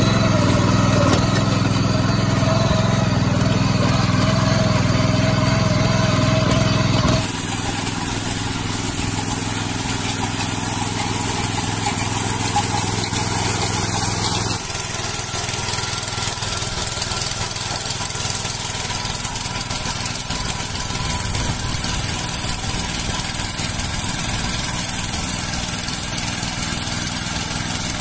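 Mini power weeder (small rotary tiller) with its small petrol engine running steadily under load as the tines churn wet paddy-field mud. The engine sound changes abruptly about a quarter of the way in and again about halfway through.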